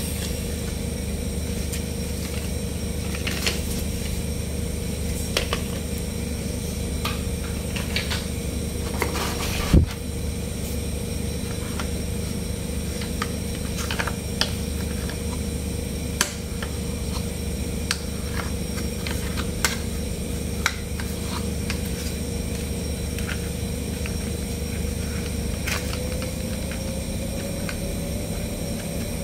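Plastic toy trucks being handled: scattered light clicks and knocks of plastic parts, the sharpest a little under ten seconds in, over a steady background hum.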